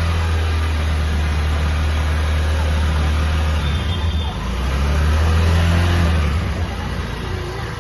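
Honda Shine BS6's single-cylinder engine running on a freshly fitted carburettor in place of its fuel injection. It idles steadily, and the revs rise briefly around the middle.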